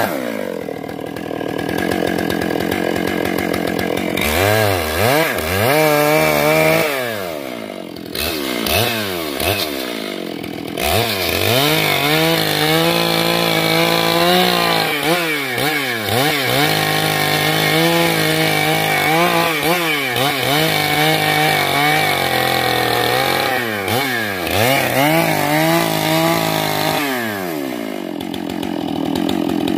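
Stihl MS 661 chainsaw's two-stroke engine running at high revs while ripping along the length of a large log, its pitch dropping and rising again and again as the chain loads up in the cut and recovers.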